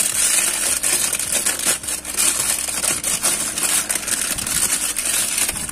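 Thin plastic packaging bag crinkling and rustling continuously as hands pull a metal soldering station unit out of it.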